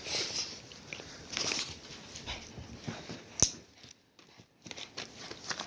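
A new pocket knife's packaging being handled and opened: irregular rustling and scraping, with one sharp click about three and a half seconds in.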